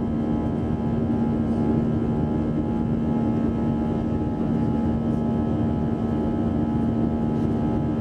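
Airbus A320's turbofan engines during the climb after takeoff, heard inside the cabin over the wing: a steady rushing noise with a constant low hum and fainter steady tones above it.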